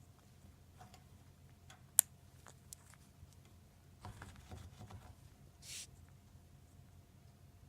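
Senegal parrot making a short, breathy sniffing hiss a little over five and a half seconds in, a mimicry of its owner inhaling through the nose rather than a sign of abnormal breathing. A sharp click about two seconds in, with a few fainter clicks and rustles.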